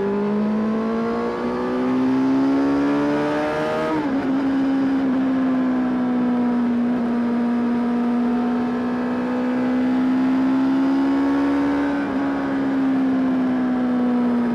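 Honda CBR600RR's inline-four engine accelerating: the note rises to an upshift about four seconds in, then holds and climbs slowly until a second upshift near the end.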